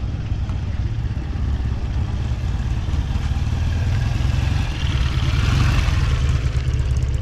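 A motorcycle engine running as the bike rides past at low speed. It grows louder to a peak about five to six seconds in, then fades, over a steady low rumble.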